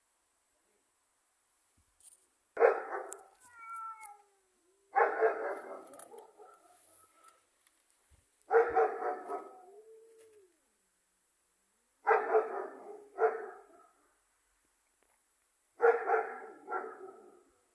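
A cat giving short, harsh yowls in five outbursts a few seconds apart, the last two doubled, each starting suddenly and trailing off, with fainter whining tones between them.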